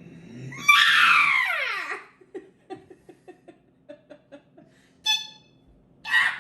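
A person making silly wordless mouth noises: a loud squeal that slides down in pitch, then a quick string of short pops or clucks, then two brief squeaks near the end.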